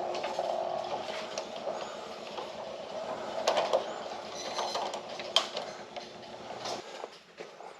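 A steady low mechanical rumble with a hum over it, mixed with scattered clicks and knocks. The rumble cuts off suddenly near the end.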